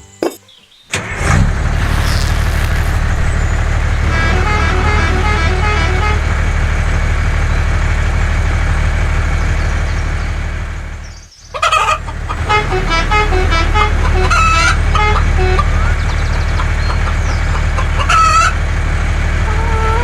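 A vehicle engine runs steadily with chickens clucking over it. The sound cuts out briefly about eleven seconds in, and a louder call comes near the end.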